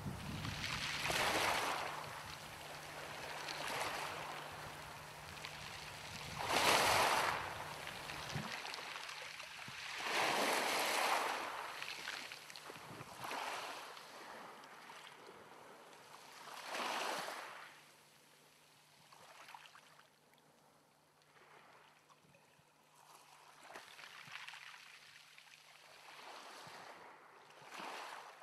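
Outdoor ambience: a series of whooshing swells of noise, each rising and fading over a second or two. The loudest come about seven and eleven seconds in, and they grow fainter and sparser in the second half.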